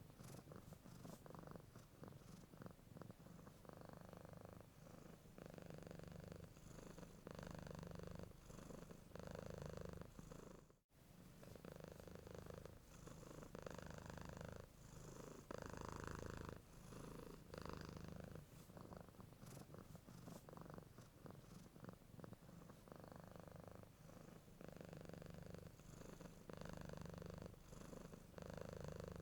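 A domestic cat purring quietly and steadily, swelling and easing with each breath about once a second. About eleven seconds in there is a brief break, like a splice in the recording.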